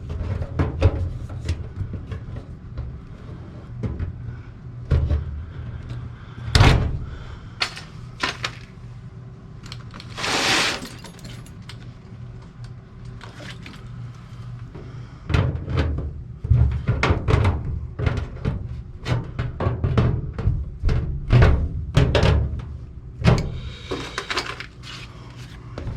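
Tin snips cutting sheet-metal ductwork: a series of sharp metallic clicks and crunches with handling thumps, densest in the second half. A brief rushing hiss comes about ten seconds in.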